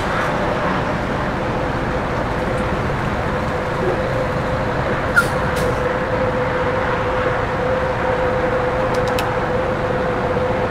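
Box truck's engine running steadily as the truck pulls a short way forward, a constant hum over a steady rumble, with a few faint clicks about halfway and near the end.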